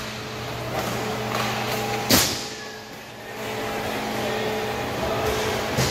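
Inline hockey play in a rink: scattered small clicks and knocks of sticks and skates, with one sharp crack of a hit about two seconds in, over a steady hum.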